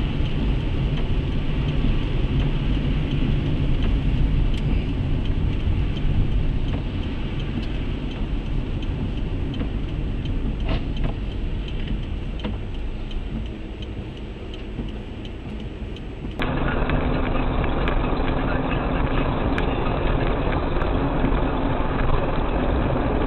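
Car cabin noise from a dashboard camera: steady engine and tyre noise on a wet road, with a few faint clicks. About 16 seconds in it switches abruptly to a louder, duller in-car drone from another recording.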